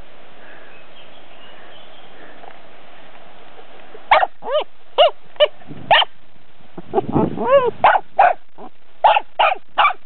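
A dog barking: after a few seconds of faint steady hiss, a run of about a dozen short, sharp barks begins, with a quick cluster of higher, arching yelps partway through.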